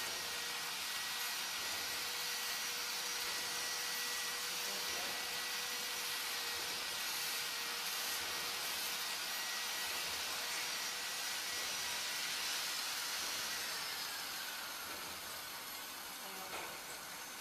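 High-speed 16-station rotary table screen printing machine running: a steady airy hiss with two faint steady whines, easing off a little in the last few seconds.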